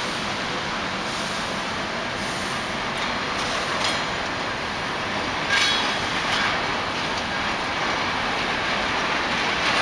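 Container freight wagons of a long train rolling past as it pulls away, a steady rumble and rattle with a few sharp clicks from the wheels over rail joints in the middle.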